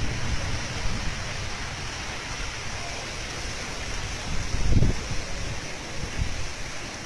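Steady rushing of floodwater mixed with wind, with low gusts buffeting the microphone, the strongest about five seconds in.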